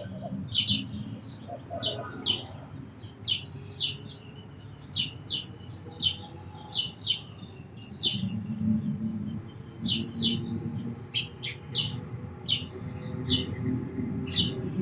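House sparrows chirping: short, sharp chirps repeated about two to three times a second, over a low steady rumble.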